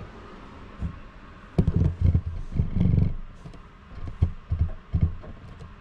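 Handling noise: an irregular run of dull thumps and knocks with a few sharp clicks, as things are moved about and the camera is set back up.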